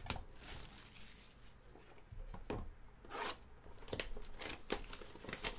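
Shrink wrap being torn and crinkled off a cardboard box of trading cards, with the box being handled: a series of short, irregular rustling tears.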